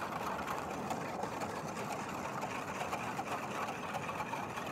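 Wire whisk stirring water in a plastic brining bucket: a steady swishing and sloshing as the salt-and-sugar brine mix is dissolved.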